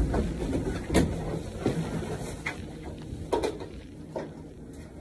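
Elevator car: a steady low rumble with about four separate sharp knocks and clinks spread through it.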